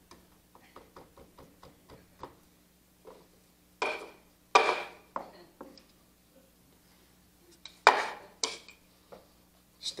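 A nail pressed and pounded by hand into a small wooden block, without a hammer: a run of light taps, then a few sharp knocks, two of them with a brief metallic ring.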